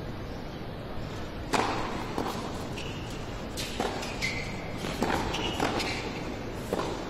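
Tennis rally in an indoor arena: the ball is struck by rackets and bounces on the court, sharp pops starting about a second and a half in and coming roughly a second apart, with short rubber-sole squeaks on the court between shots.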